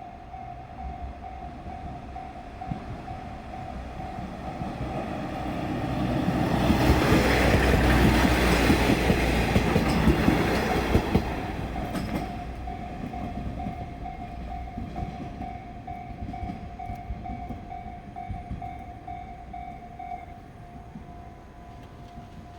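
A JR diesel railcar train passes over a level crossing. It is loudest about seven to eleven seconds in, with wheel clicks over the rail joints as it goes by. The crossing's warning bell rings steadily throughout.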